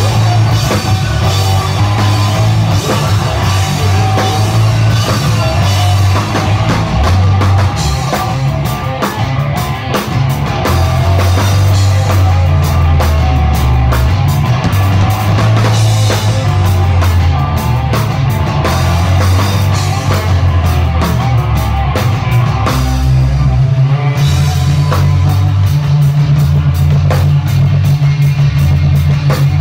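Live rock band playing loudly: electric guitars, bass and drum kit, with the riff changing about two-thirds of the way through.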